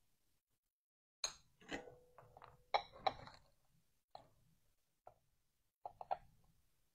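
Light clicks, clinks and knocks of glass pieces and a soldering iron being handled on a worktable, a tight cluster about a second in, then a few single taps as the iron is set down in its stand and the glass panels are pressed into the jig.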